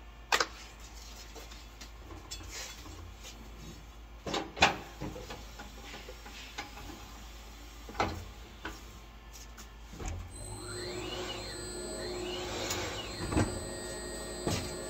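Tire changer work: a few sharp knocks and clanks as the tire and rim are handled on the machine, then from about ten seconds in the changer's turntable motor running, its whine rising and falling, as the tire bead is worked onto the rim.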